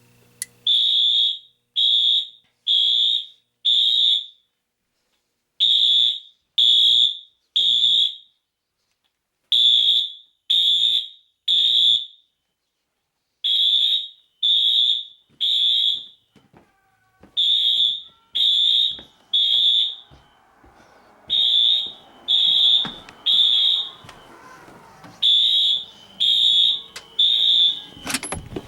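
Fire alarm system sounding after a panel-triggered test: high-pitched electronic beeps in groups of three with short pauses, the temporal-three evacuation pattern. A lower, rattling noise joins in about two-thirds of the way through.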